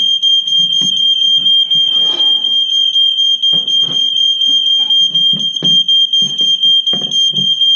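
Smoke alarm sounding with a loud, steady high-pitched tone: a false alarm set off by smoke from soldering copper pipe. Scattered low thuds and handling noises sound beneath it.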